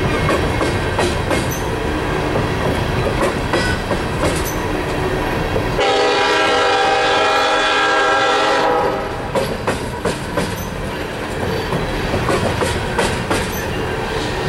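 Empty coal hopper cars of a slow freight train rolling past, their wheels clicking over the rail joints. About six seconds in, a steady pitched sound of several tones holds for about three seconds and then stops.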